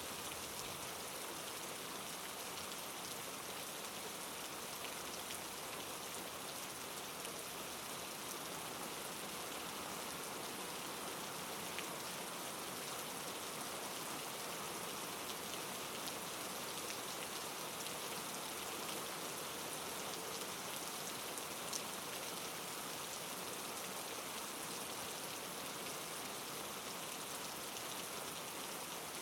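Steady rain falling, an even hiss of many drops with a few sharper drop ticks now and then.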